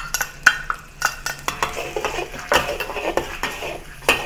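Metal wok spatula scraping and clinking against the wok in repeated strokes while stir-frying chopped ginger and garlic in a little oil, over a faint sizzle.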